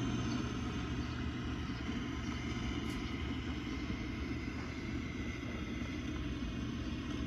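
1958 Gibson GA-20 tube amplifier idling with both volume controls turned down, its Jensen speaker giving a steady mains hum under an uneven crackling and hiss. The crackle comes from the phase inverter stage and was traced to a noisy 1K cathode resistor.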